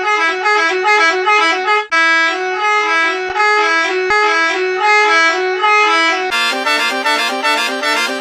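Bus air horn sample pitched to different notes and played as a tune: a melody hopping back and forth between two main notes, with a short break about two seconds in. About six seconds in it switches to a faster run of horn notes.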